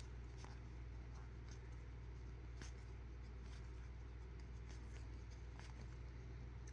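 Faint handling of a stack of baseball trading cards: soft, scattered clicks and rustles as cards are slid off the stack one at a time, over a steady low hum.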